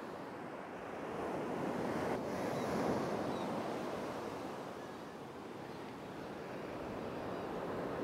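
Sea surf washing onto a sandy beach, a steady rush of waves that swells about two to three seconds in and then eases off, with wind on the microphone.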